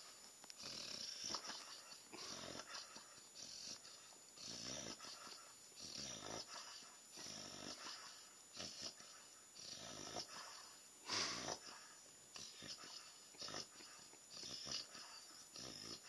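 A sleeping puppy making noises in its sleep: a run of short, breathy sounds about one a second, the loudest about eleven seconds in.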